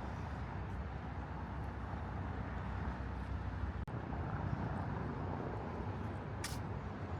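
Steady low rumble of outdoor city ambience, with a momentary dropout a little past halfway and a brief hiss near the end.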